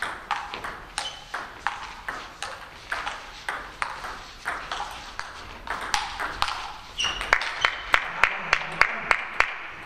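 Table-tennis ball clicking off bats and table. The clicks are scattered at first, then from about seven seconds in become a fast, even rally of about three to four clicks a second.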